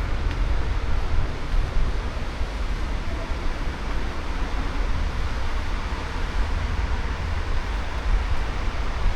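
Steady cruise-ship deck ambience: a constant low rumble with an even hiss over it.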